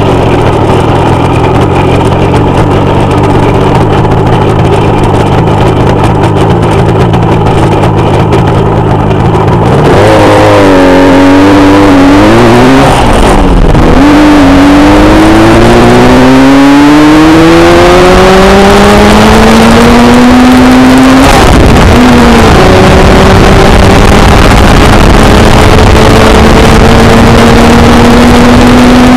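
Café-racer motorcycle engine pulling hard under acceleration: steady for about ten seconds, then rising in pitch through the gears with a drop at each of two shifts, and climbing slowly at speed near the end, under heavy wind noise.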